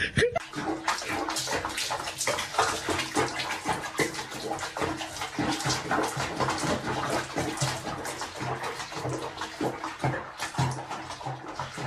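Water splashing and sloshing in a bathroom sink of soapy water as a cat is bathed in it, a choppy, continuous watery noise.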